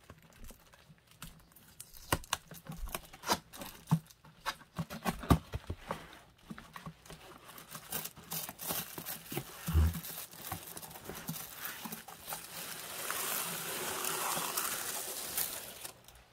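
Packaging being handled: gloved hands sliding and tapping on a cardboard box and its sleeve, with scattered knocks and a low thump about ten seconds in. In the last few seconds a plastic bag crinkles steadily as the product is lifted out.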